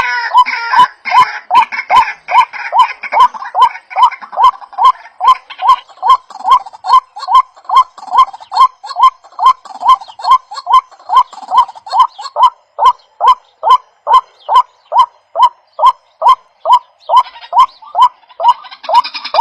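A bird's short call repeated steadily, about two calls a second, each a quick hooked note.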